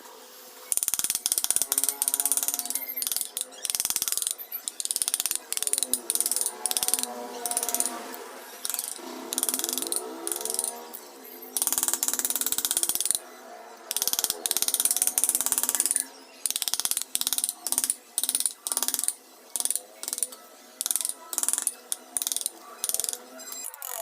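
A hand tool working wood in repeated strokes, a rough scraping, some longer than a second and others shorter and quicker in the second half.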